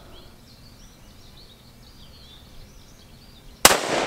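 A single shot from a .308 bolt-action rifle fitted with a muzzle brake, about three and a half seconds in: one sharp crack with a trailing echo.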